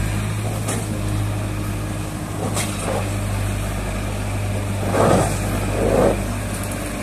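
Farm tractor's diesel engine running steadily while pulling a trolley loaded with sand, with two louder, rougher swells about five and six seconds in.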